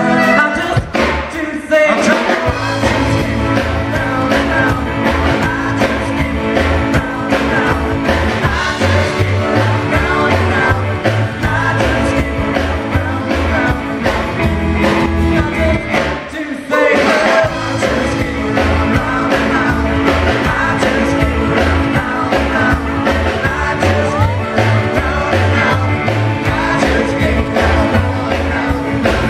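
Live rockabilly band playing with singing: upright bass, electric guitar, drums and saxophone. The band drops out briefly about a second in and again about halfway through.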